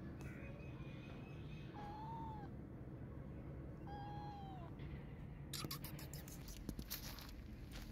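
A young kitten meowing twice, two short high calls each dipping in pitch at the end. From about two-thirds of the way in, a run of clicks and rustles follows.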